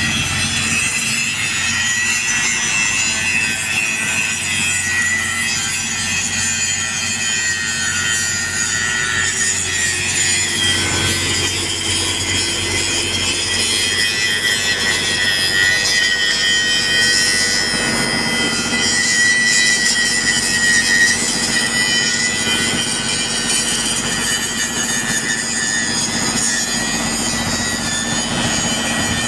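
Angle grinder grinding steel on an excavator bucket adaptor: a steady, loud abrasive grinding with a high whine that runs without a break.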